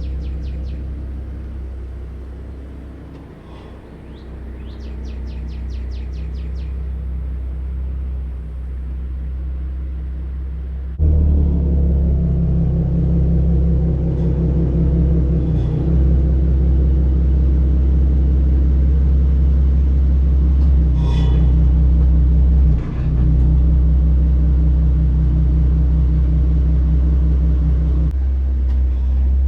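Car engine running steadily under a low rumble of road and drive noise. It jumps suddenly louder about eleven seconds in and stays louder, with a quick run of high chirps earlier on.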